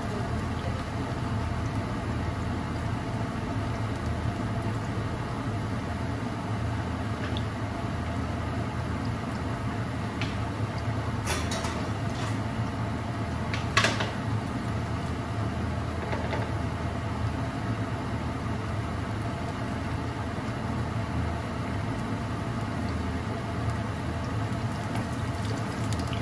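Steady hum and hiss of a kitchen stovetop, with minced garlic cooking in olive oil in a frying pan. A nylon spatula knocks against the pan a few times between about 10 and 14 seconds in; the loudest knock comes at about 14 seconds, as it is laid down in the pan.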